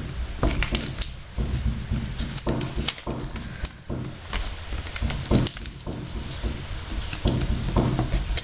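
Sheet of paper being folded and creased by hand: irregular crinkles and rustles, with light knocks against the surface beneath.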